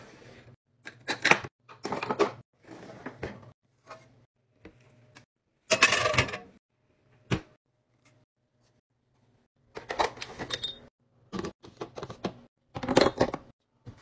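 Cutlery and kitchen gear being handled: a run of irregular clinks and clattering knocks, loudest about six seconds in and again near the end.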